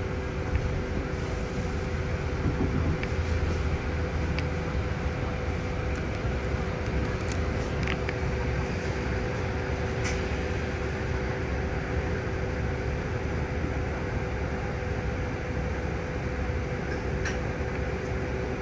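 Steady low rumble inside a city bus, with a constant two-note hum, as the bus pulls in and then stands at a stop with its engine and systems running. A few faint clicks sound over it.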